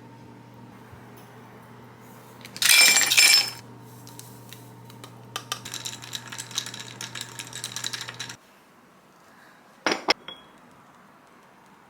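Dishes and utensils clattering and clinking against each other: a loud clatter about three seconds in, then a longer run of rattling clinks. Two sharp knocks follow, and a steady low hum in the background cuts off about eight seconds in.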